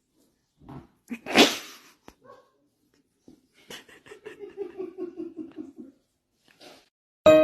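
A dog: one loud, sharp breathy burst about a second in, then a fast, wavering, pulsing vocal run lasting about two seconds.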